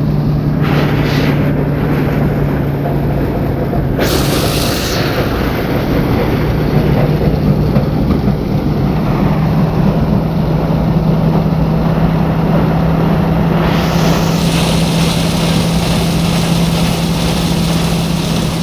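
Truck-mounted rice threshing machine running steadily with a constant low hum, a rattly noise that sounds like a machine breaking down though it keeps working. A short rush of hiss comes about four seconds in, and a higher hiss joins from about two-thirds of the way through.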